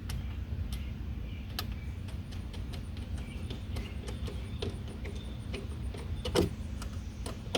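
Irregular light clicks and taps of hand tools tightening the fittings on the supercharger intake piping, with one louder knock about six seconds in, over a steady low rumble.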